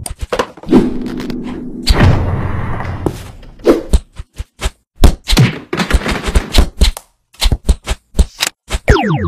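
Cartoon fight sound effects: heavy thuds and whacks in the first few seconds, then a rapid run of sharp hits and shots, ending in a falling zap.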